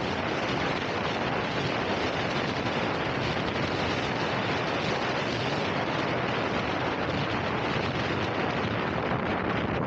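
Steady wind rush buffeting the microphone of a bike moving at speed, a dense unbroken noise with no pauses.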